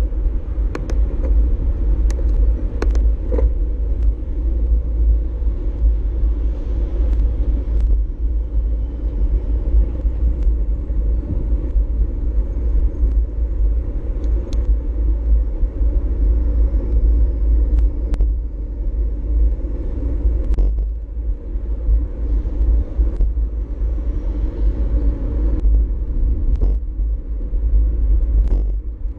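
Wind rumbling over the bike-mounted action camera's microphone while the bicycle rolls along, with steady tyre noise and scattered short clicks and rattles from bumps in the trail.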